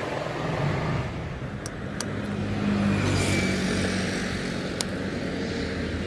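KTM Duke motorcycle's single-cylinder engine running as the bike moves off slowly, its note rising and getting louder about two to three seconds in, then easing back.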